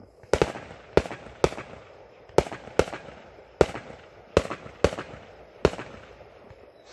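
Fireworks going off: about ten sharp bangs at irregular intervals, the first two in a quick pair, spread over five or six seconds.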